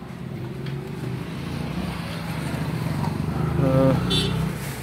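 A motor vehicle's engine running steadily, growing louder for about four seconds and then easing off, as if passing close by. A brief voice and a light metallic clink come near the end.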